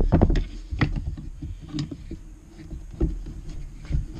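Synthetic rifle stock being handled on a plywood workbench: a series of irregular knocks and scrapes, the loudest right at the start.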